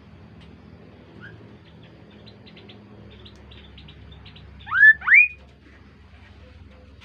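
Kaso-kaso bird calling: two loud rising whistled notes in quick succession about five seconds in, after a fainter rising note near the start and some soft high chirps.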